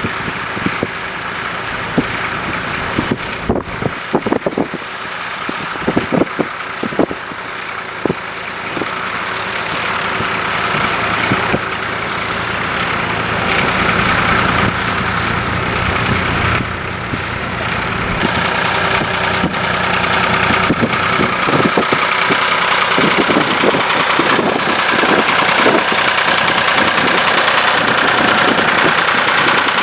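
Ford 4000 tractor engine running steadily while ploughing, with a few sharp knocks in the first several seconds, growing louder through the second half.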